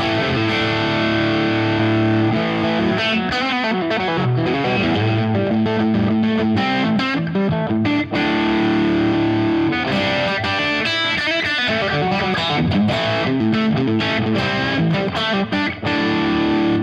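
Electric guitar played through a Fractal Audio amp modeller with the Compulsion Distortion drive model engaged: distorted crunch chords ringing, with faster picked passages in between.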